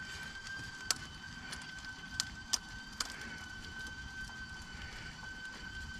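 A steady, high-pitched whistle-like tone that holds one pitch, with a few sharp clicks from hands working on hose and linkage parts in the engine bay.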